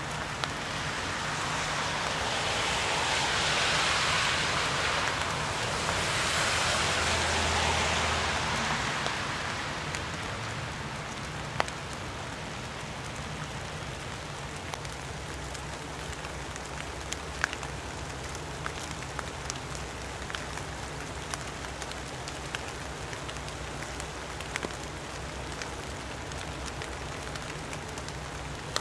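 Steady rain falling on leaf litter and trees, with scattered sharp drips. In the first several seconds a louder rushing sound swells up and then fades.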